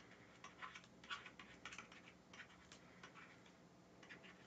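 Faint, irregular taps and clicks of a stylus on a drawing tablet as words are handwritten.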